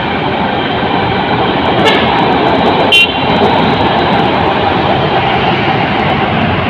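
A Rotem Toshiba 2000-class electric multiple unit running past on the elevated light-rail track, a steady running noise mixed with road traffic. A short, loud horn toot sounds about three seconds in.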